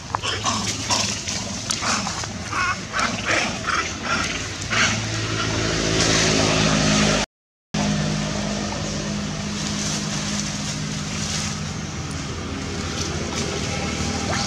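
A run of short, separate animal calls, about eight in the first four or five seconds. Then a steady low engine drone takes over, with a brief gap of silence about halfway through.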